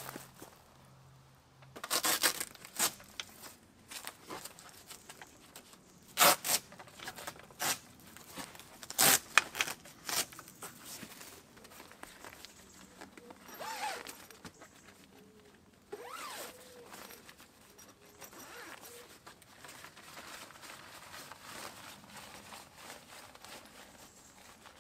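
Rooftop tent being set up by hand: a run of sharp clicks and knocks from its poles and fittings, then softer rasping and rustling of the tent canvas, with zip-like sweeps about two thirds of the way through.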